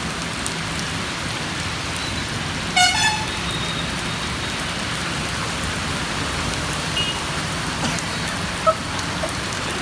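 Steady heavy rain with road traffic running through the water, and a vehicle horn tooting briefly about three seconds in.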